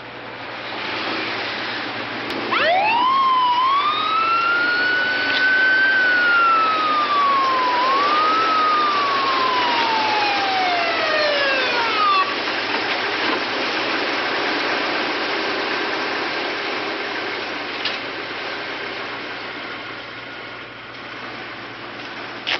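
Police motorcycle siren winding up about two seconds in, wailing high, dipping once and rising again, then winding down and dying out about halfway through. Engine noise under it carries on steadily afterwards.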